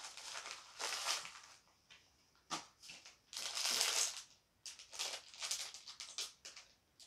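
Clear plastic packaging crinkling and crunching in the hands in irregular bursts with short pauses between them.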